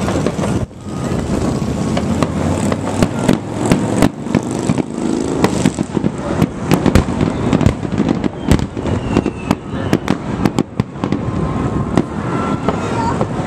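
Aerial fireworks shells bursting, a run of sharp bangs one after another over a steady background noise. The bangs come thickest through the middle.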